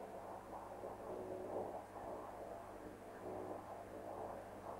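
Quiet room tone of an old video recording: a steady low electrical hum under faint, indistinct background noise.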